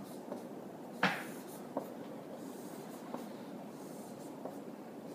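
Marker drawing arrows on a whiteboard: quiet strokes, with a sharp tap on the board about a second in and a few fainter taps after.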